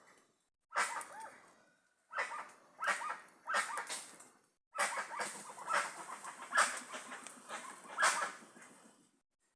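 A flock of jacu (guans) calling: loud, repeated calls in runs of several at a time, with short pauses between runs. The calls stop about a second before the end.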